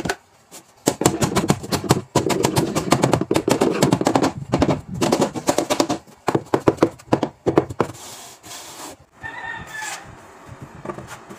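A fast run of sharp knocks and taps on the wooden cabinet frame, as from hammering or tapping with a hand tool. It stops about eight seconds in.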